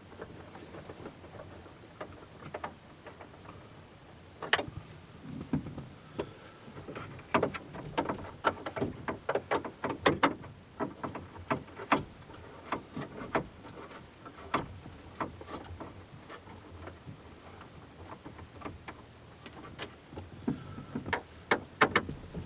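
Instrument-cluster screws being tightened in a 2002 Chevrolet Silverado's dashboard: a run of irregular small clicks and taps of tool on screw and plastic, busiest in the middle and again near the end.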